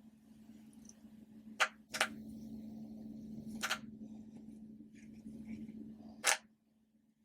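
Small animal popper toys popping: four sharp snaps, two close together about one and a half seconds in, one near the middle and one near the end, over a low steady hum that drops away after the last pop.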